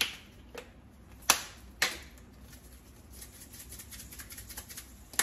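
Seasoning containers handled while shrimp are seasoned: sharp clicks and taps, twice more between one and two seconds in, then a run of light quick ticks like seasoning being shaken out, and another click at the end.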